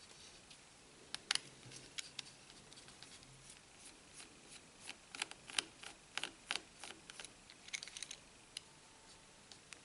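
Small irregular clicks and ticks of a Phillips screwdriver working the tiny screws in a phone's plastic frame, a few at first and coming more often about halfway through.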